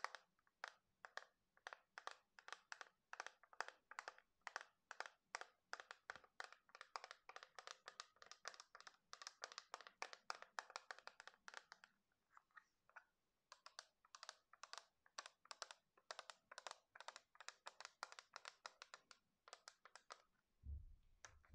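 Fingernails tapping quickly on a plastic phone case, faint crisp clicks several a second. There is a short pause about twelve seconds in and a low handling thump near the end.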